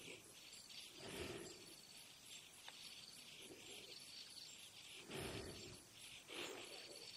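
Faint crickets chirping in steady, rhythmic pulses, with a few soft whooshes about a second in and again near the end.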